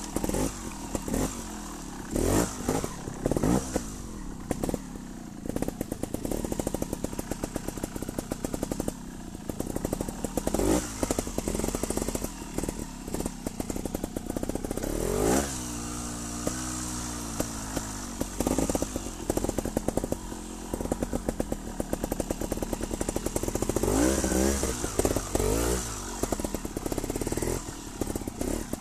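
Trials motorcycle engine heard from on the bike, running at low revs with frequent short throttle blips that rise and fall in pitch. About fifteen seconds in, the revs climb sharply and then drop away.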